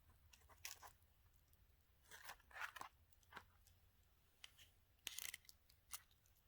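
A few short, irregular crackles and crunches over a quiet background, with the busiest clusters about two seconds in and about five seconds in.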